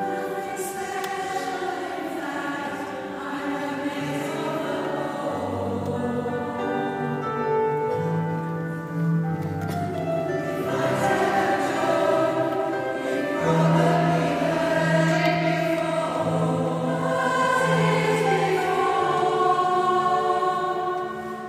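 Large women's choir singing together, holding long sustained notes, in a cathedral nave.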